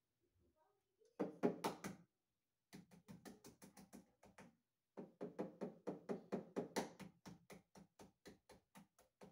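An egg tapped again and again against the rim of a glass mixing bowl to crack it, in light, quick knocks at about four or five a second, with short pauses between runs.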